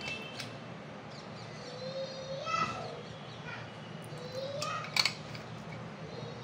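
Birds calling in the background: short chirps and a few harsher calls. There is a sharp click about five seconds in.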